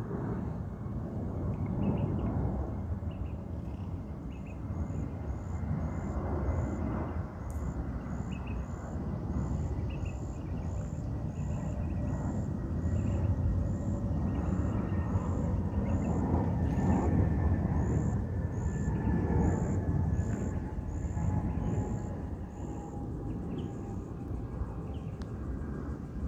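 Outdoor ambience dominated by wind rumbling on the phone microphone. A short, high chirp repeats every half second or so from about four seconds in until near the end, and a faint thin drone slowly sinks in pitch.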